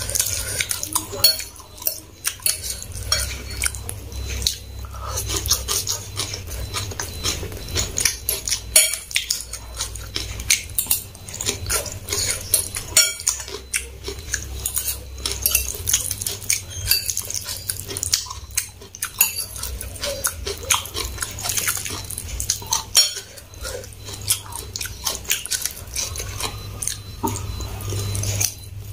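Close-miked eating sounds: a metal fork clinking and scraping against a ceramic bowl as instant fried noodles are picked up, slurped and chewed, in many short clicks.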